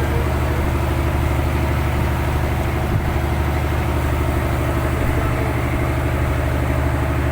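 Fishing boat's engine running steadily at an even speed: a constant low engine drone that does not rise or fall.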